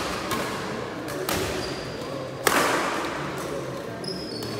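Badminton rackets striking a shuttlecock during a doubles rally: two sharp hits that echo in the hall, about a second in and, louder, halfway through. Short high squeaks from players' shoes on the court near the end.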